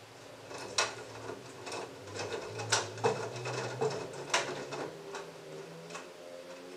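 LG front-loading washing machine drum speeding up at the start of its final spin: a low motor hum climbing in pitch, with irregular sharp clicks and knocks as the wet load tumbles and falls inside the drum.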